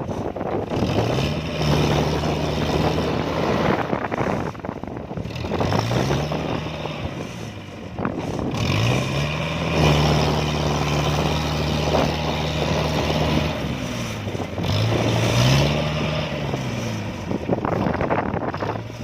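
Diesel engine of a tracked farm machine bogged in deep mud, revved up and held, then dropped back, about four times over, as it strains to pull through.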